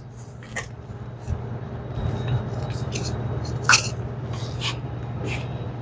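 Gloved hands handling Flojet syrup pumps and their plastic auto shutoff valve, making a few scattered clicks and rustles over a steady low machinery hum.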